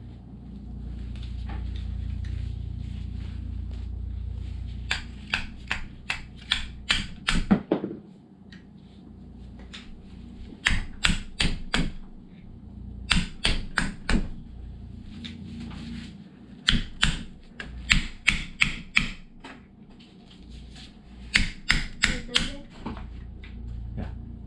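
Bursts of sharp taps, several at a time at about four a second, from striking the rack and pinion's mounting bushings to drive them out of their holes. A low rumble of handling runs under the first few seconds.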